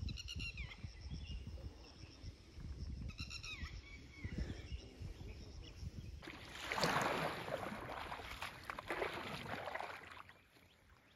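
Outdoor lakeside ambience: low wind rumble on the microphone, with a short high call, likely a bird, near the start and again about three seconds in. From about six seconds a louder rushing, splashy noise comes in for a few seconds, then fades.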